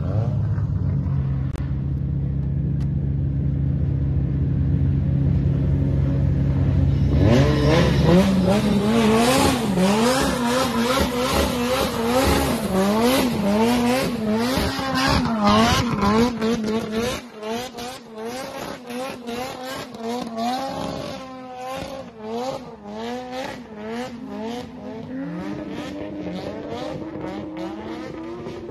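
Drift car engines revving hard, their pitch swinging up and down with quick throttle blips as the cars slide, with some tire squeal. The engine note is lower and steadier at first. The hard revving is loudest from about a quarter of the way in to just past halfway, then carries on quieter for the rest.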